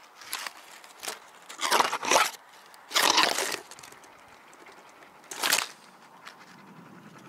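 Leafy branches rustling and scraping right against the camera in five short bursts, the loudest about two and three seconds in.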